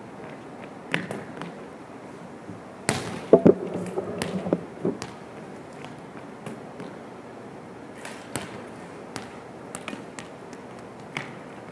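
Volleyballs being struck and bouncing on a hardwood gym floor: a handful of sharp slaps and thuds that echo in the gym, the loudest a little under three seconds in, followed by a brief squeak and a short cluster of lighter knocks, then a few scattered taps near the end.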